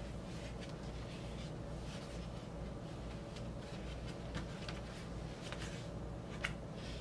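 Faint rustling and a few light scrapes of cardboard and paper as a gatefold vinyl record jacket and its printed inner sleeve are opened and handled, over a low steady hum.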